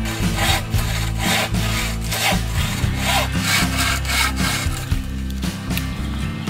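Bow saw cutting through a thin wooden pole in quick, even back-and-forth strokes, about two to three a second, easing off about two-thirds of the way through. Background music plays under it.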